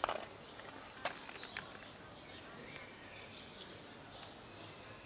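Faint outdoor background with faint bird chirps, and a few soft clicks in the first two seconds.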